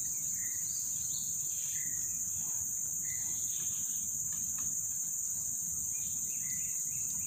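Steady high-pitched drone of insects in a forest chorus, with a few short faint bird chirps now and then.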